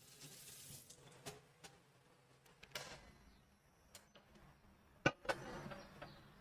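Kitchen utensils and food being handled while cooking: a few light knocks and clinks mixed with short scraping or rustling sounds.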